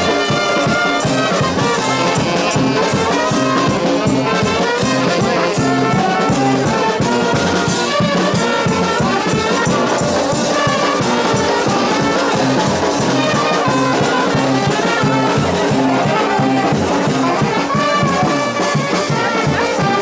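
Street brass band playing: trumpets, trombones and saxophones with a sousaphone, over a steady beat.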